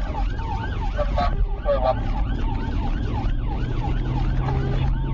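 Police car siren on a fast yelp, its pitch sweeping up and down about three times a second, heard from inside the pursuing car over engine and road rumble.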